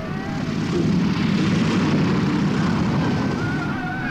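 Propeller aeroplane engine coming in low, its noise swelling over the first second and then staying loud before easing slightly near the end. Faint voices cry out at the start and near the end.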